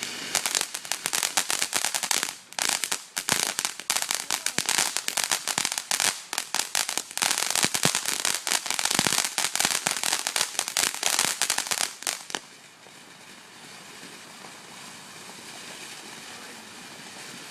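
A firework crackling: a dense, rapid run of sharp pops and crackles for about twelve seconds, which cuts off abruptly, followed by a faint steady hiss.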